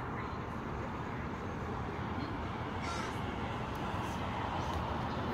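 Crows cawing a few times, the clearest call about three seconds in, over a steady background rumble.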